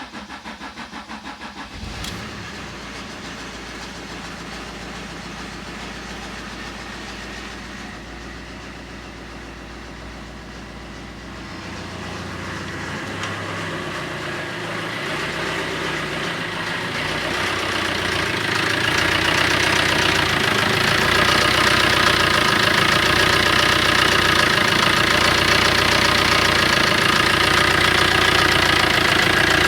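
Fiat Doblo 1.3 JTD four-cylinder diesel cranking briefly and catching about two seconds in, then idling with a knock that the owner puts down to the timing chain. The sound grows steadily louder from about eleven seconds in.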